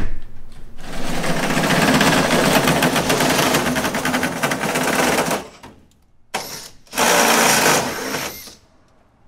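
Shop vacuum running with its hose nozzle held against a drilled firewall mount pad, a loud rushing noise with a fast flutter that stops about five seconds in and comes back twice, briefly and then for about a second and a half.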